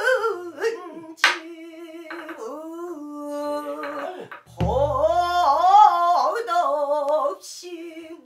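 Female pansori singer holding long notes with a wide, slow vibrato and sliding between pitches, accompanied by a buk barrel drum: a sharp crack about a second in and a deep boom about halfway through.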